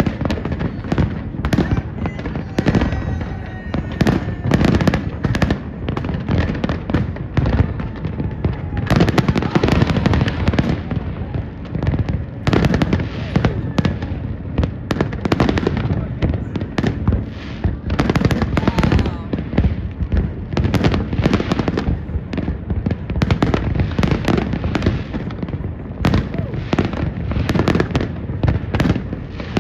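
Fireworks display going off without a break: a dense stream of bangs and crackling, heaviest in a burst of explosions about nine to eleven seconds in. A few falling whistling tones sound near the start.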